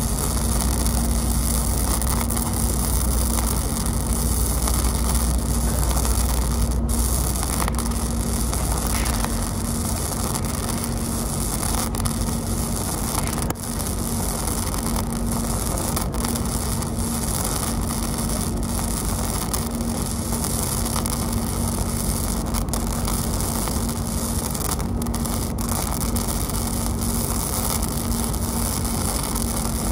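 Welding arc crackling and hissing steadily as a bead is run on a steel beam, with a steady hum beneath it. A low rumble under the arc drops away about nine seconds in.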